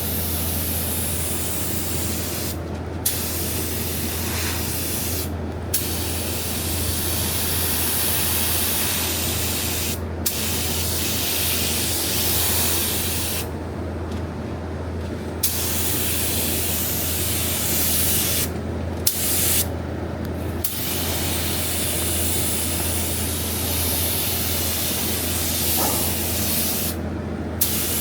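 Compressed-air spray gun spraying primer, a steady loud hiss broken by about seven short pauses where the trigger is let off between passes. A steady low hum runs underneath.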